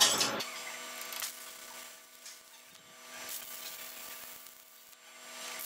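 Stick (SMAW) welding arc crackling unevenly as a tack weld is laid on steel plates, over a faint steady hum. A louder sound cuts off abruptly about half a second in.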